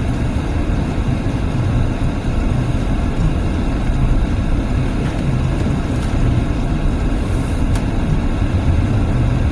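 Steady road and engine noise inside a moving car's cabin, with the tyres running on a snow-covered road.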